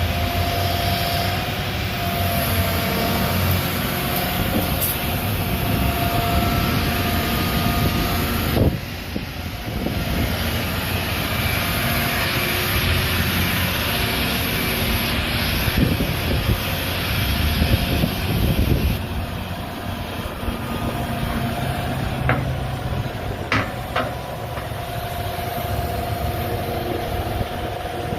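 John Deere 350G excavator running, its diesel engine and hydraulics working under varying load with a steady whine. There are a few sharp knocks and clanks, about a third of the way in and twice near the end.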